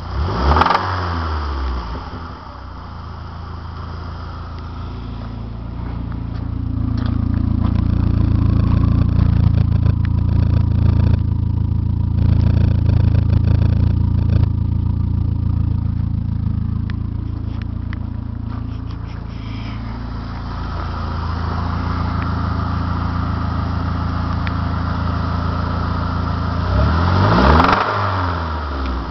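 Saab 9-5's B235R 2.3-litre turbocharged four-cylinder engine blipped once, then held at raised revs for about twelve seconds before dropping back, and revved quickly again near the end. Above 1500 rpm it knocks, knocking like mad in the owner's words.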